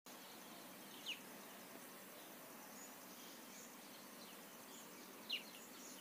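Faint steady background hiss, broken by two short high chirps that slide downward, one about a second in and one near the end.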